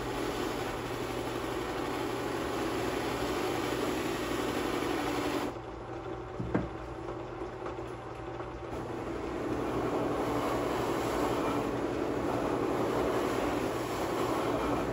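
Double-ended buffing machine, taken to be a StewMac setup, running with its cloth buffing wheels spinning: a steady motor hum and whir. The sound drops briefly about halfway through, then comes back fuller and a little louder.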